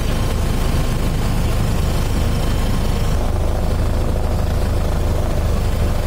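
Helicopter rotor and engine drone heard from on board, a steady, loud, low rumble with an even rushing noise over it.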